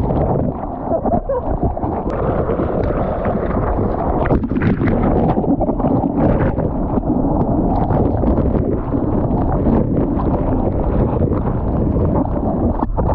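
Ocean surf rushing and splashing around a camera in the waves: a continuous, dull wash of churning water without a steady rhythm.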